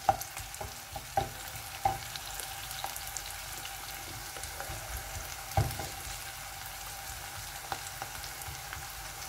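Sliced onions sizzling and crackling steadily in hot oil in a pot. The wooden spoon stirring them knocks against the pot a few times.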